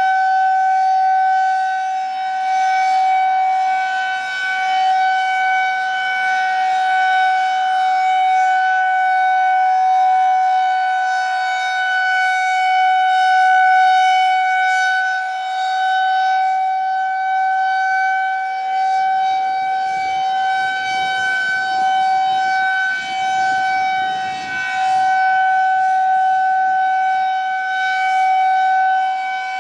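Federal Signal 2001-130 electromechanical rotating siren sounding a steady single-tone alert during a monthly test, its pitch held level while the loudness swells and dips gently as the head rotates.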